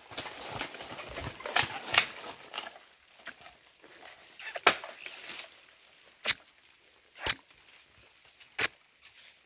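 A knife chopping at a coconut: a run of single sharp knocks a second or so apart, spreading out toward the end.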